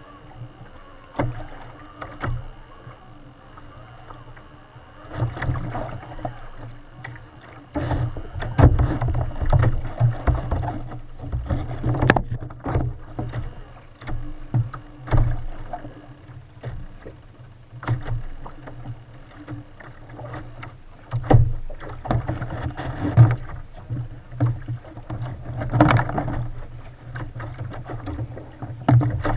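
Choppy sea waves slapping and knocking against a fishing kayak's hull, with irregular splashes and thumps over a low rumble.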